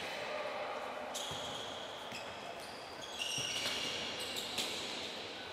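Futsal players' shoes squeaking sharply on the indoor court floor, twice in short runs, among a few dull kicks of the ball, with echoing shouts from players early on.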